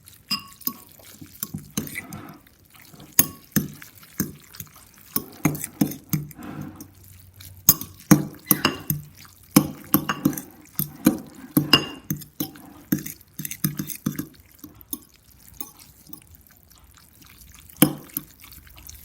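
A utensil stirring wet instant noodles and broth in a bowl: irregular clinks and knocks against the bowl with wet squelching and dripping sounds.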